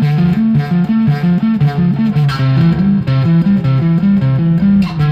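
Electric bass guitar played through its neck pickup, picking a busy riff of low notes that steps back and forth between a few pitches without a break.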